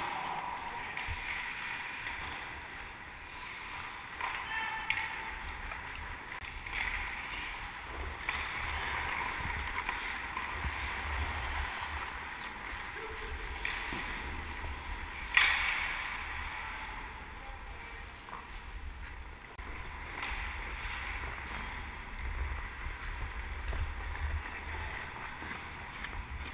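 Ice skate blades carving and scraping on the ice, in surges with each stride and glide, with wind rush and rumble on a helmet-mounted GoPro. A single sharp crack about fifteen seconds in.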